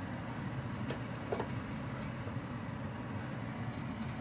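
Rice being stirred in a nonstick frying pan with a spatula, with a couple of light taps about a second in, over a steady low hum.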